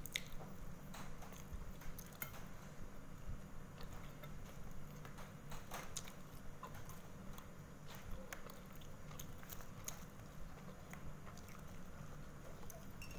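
Close-up chewing and wet mouth clicks of a person eating satay, with scattered light clicks and taps, over a steady low hum.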